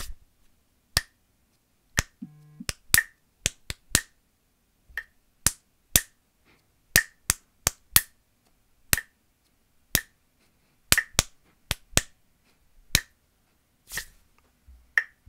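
Hand claps tapping out a written rhythm of dotted notes, syncopations and triplets, over an online metronome clicking once a second at 60 BPM.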